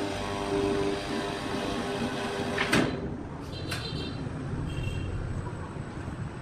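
Sawmill machinery running: a saw cutting with a loud hiss over a steady pitched hum, ending abruptly with a sharp knock about three seconds in. After that a low rumble goes on, with a few clicks.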